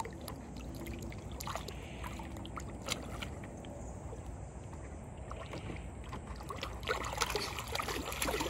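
Water sloshing and lapping in a plastic kiddie pool as a dog paws at the bottom, with small splashes and scrapes that get busier near the end.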